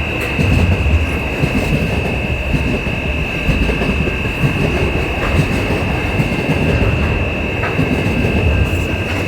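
A train running, with a loud steady low rumble and a constant high-pitched whine over it.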